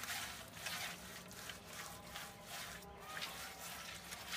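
Hands smearing wet mud plaster on the inside of an unfired clay oven pot: a series of brief scraping rubs at uneven spacing.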